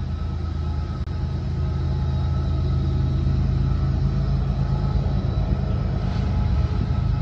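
Low, steady rumble of a train, with faint steady tones above it.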